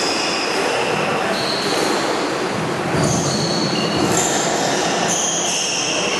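Squash shoes squeaking on the hardwood court floor during a rally: many short, high squeaks following one another as the players dart and stop, over steady background noise.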